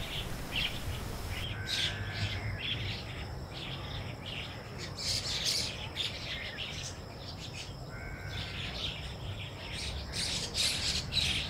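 Outdoor birds chirping in short, repeated calls over a low background rumble, with a faint steady high tone underneath.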